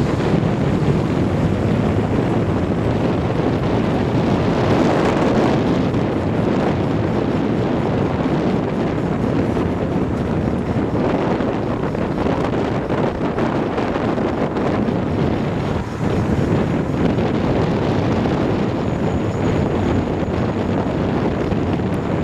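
A moving vehicle's steady rushing running noise, carrying a persistent wheel noise that does not let up.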